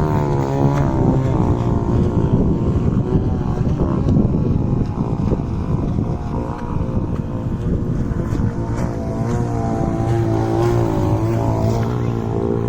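Gas-powered RC boat engine running, its pitch rising and falling as the throttle changes, with wind rumbling on the microphone.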